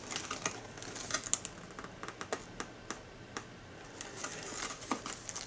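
Light, irregular clicks and rustles of a paper hang tag being handled.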